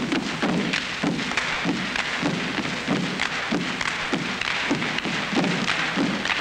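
Steady rhythmic thumping, about three sharp thumps a second, evenly spaced, over a constant hiss.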